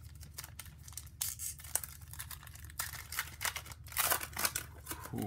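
Foil wrapper of a 2016 Panini Certified football card pack being torn open and crinkled by hand: a run of sharp crackles, busiest about three to four seconds in.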